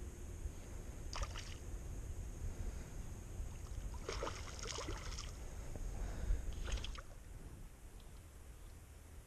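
Water splashing in short irregular bursts: once about a second in, a longer stretch around four to five seconds, and again near seven seconds. A low steady rumble runs beneath and eases after about seven seconds.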